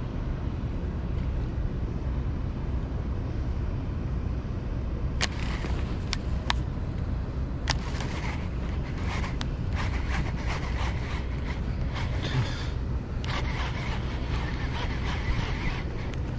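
Steady low wind rumble on the microphone. From about five seconds in come a few sharp clicks, then a denser run of ticking and rattling from the baitcasting reel and line as a small sand bass is reeled up to the kayak.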